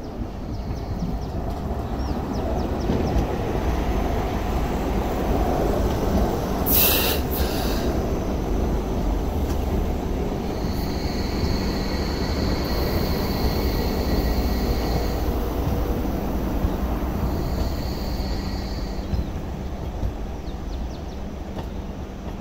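A two-car MTR Light Rail train rumbles past over the junction's pointwork and curves. About seven seconds in there is one brief sharp screech. From about halfway through, a steady high-pitched wheel squeal sounds on the curve for a few seconds, and it comes back briefly near the end.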